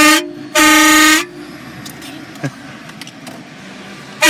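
Car-mounted train horn sounding short, loud blasts: one cuts off just after the start, a second lasting about half a second follows, and a third begins right at the end.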